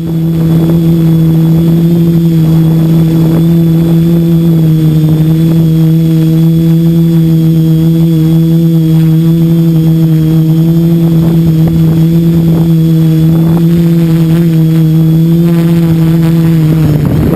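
Xmode quadcopter's electric motors and 10×4.5-inch plastic propellers humming at a steady pitch, heard close up from the onboard GoPro. The hum stops near the end.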